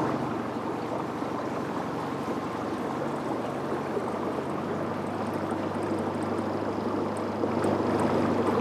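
Dinghy's small outboard motor running steadily as the boat moves along, with water washing along the hull.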